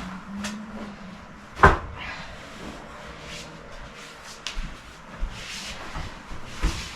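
Bedding being handled, with scattered rustles and soft bumps and one sharp knock about one and a half seconds in.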